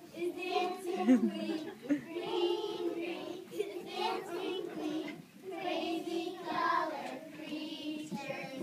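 A group of young children singing a song together in unison, in phrases a second or two long with short breaks between them.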